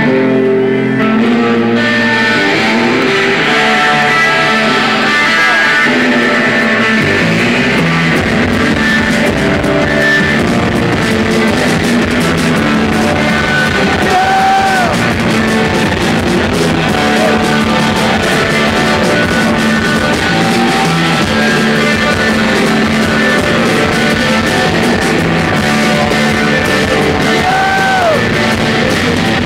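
A rock band playing live: electric guitars over bass and drums, with the deep low end filling in about seven seconds in.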